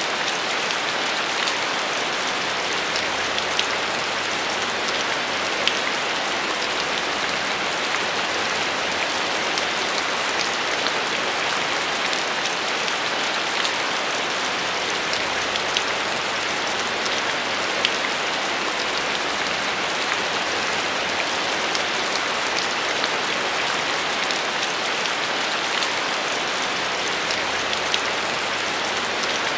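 Heavy rain falling: a steady, dense hiss with scattered sharper splats of individual drops.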